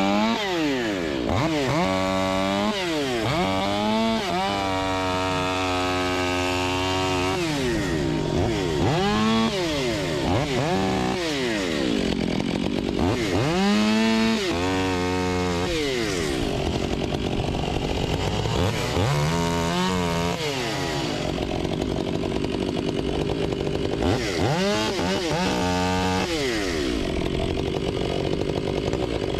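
Stihl MS 500i fuel-injected two-stroke chainsaw cutting firewood: the engine revs up for each cut, holds high through the wood, then drops back to idle, over and over.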